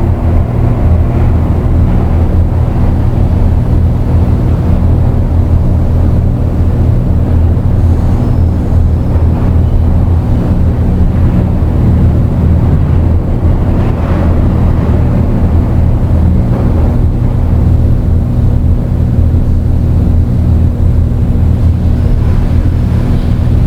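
Dark ambient electronic drone: a loud, unchanging low drone of several sustained deep tones under a grainy, rumbling noise layer.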